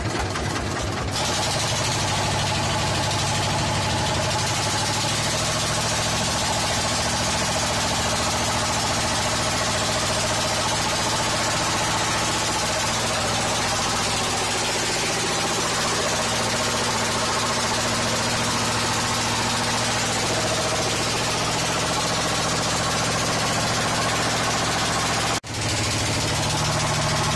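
Engine of a wooden river boat, idling with an even pulse and then picking up about a second in to run steadily under way. There is a brief break in the sound near the end.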